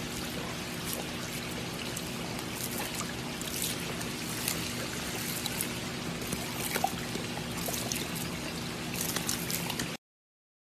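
Swimming-pool water trickling and splashing around a wading golden retriever, with a steady low hum underneath. It cuts off suddenly near the end.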